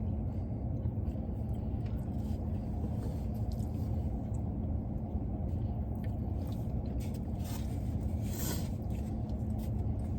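Steady low rumble and hum, with a few soft clicks and scrapes of a person eating a taco and a brief rustle about eight seconds in.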